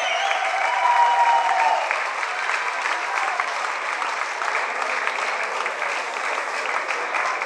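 Crowd applauding, a dense patter of many hands clapping, with a few voices calling out over it during the first couple of seconds.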